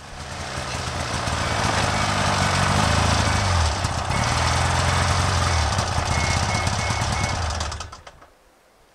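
Snowmobile engine running loud with a rattly note, its pitch climbing and dipping a few seconds in, then cutting off abruptly about eight seconds in.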